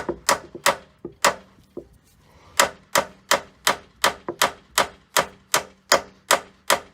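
Hammer repeatedly striking a steel punch to drive a seized, rusted metal door hinge liner out of a Jeep Wrangler JK hinge. A few uneven blows come first, then after a short pause a steady run of about three sharp metal-on-metal strikes a second. The liner is stuck fast and is not coming out.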